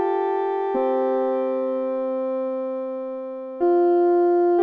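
Electronic school-style chime ringing at the end of a countdown timer: slow bell-like notes, a lower one about a second in and a higher one near the end, each fading away. It signals that the time is up.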